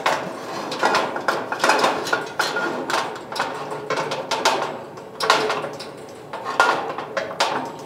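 Metal vend cradle of a vending machine's narrow column clanking and scraping against the sheet-metal column walls as it is slid in and worked around to line up with the hole at the back: irregular metallic knocks and rattles.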